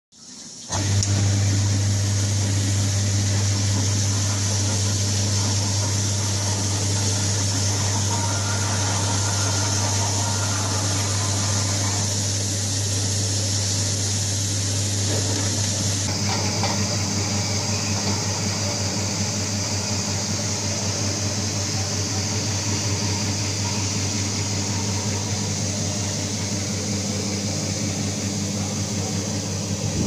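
Egg washing machine running: a steady deep electric hum from its drive and pump, with a continuous hiss of water spraying over the rollers. It starts about a second in.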